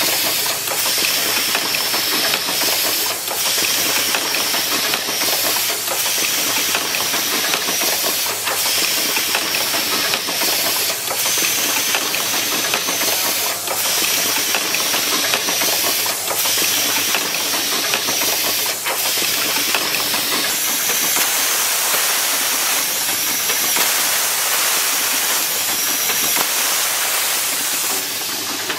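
Automatic switch assembly machine running: a steady hiss with a short sharp click about every two and a half seconds, the rhythm of its work cycle.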